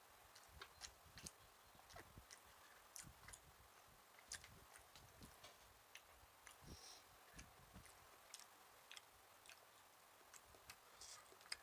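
Faint chewing and eating sounds of a person eating with his fingers: soft, irregular mouth clicks and smacks, a little louder near the end.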